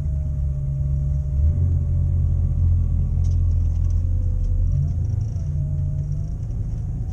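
Holden VS Commodore's engine running with a steady low rumble, its note shifting about one and a half seconds in and again near five seconds.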